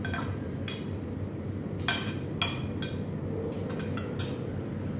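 Metal spoons clinking and scraping against stainless steel serving bowls and cups as rice and curry are served out: a string of sharp, irregularly spaced clinks over a steady low room hum.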